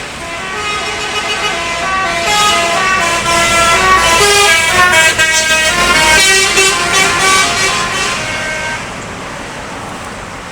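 A bus's telolet basuri musical horn plays a quick tune of short stepped notes over traffic and engine noise. It grows louder toward the middle and fades out near the end.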